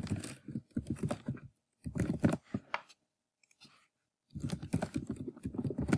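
Computer keyboard typing in three quick runs of keystrokes, with short pauses between them.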